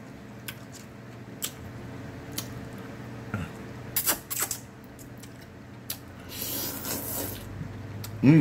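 Close-miked eating of lo mein noodles: slurping noodles off a fork, then chewing with wet mouth clicks and smacks. A hissy slurp comes about six to seven seconds in, and a short, loud hummed 'mm' near the end.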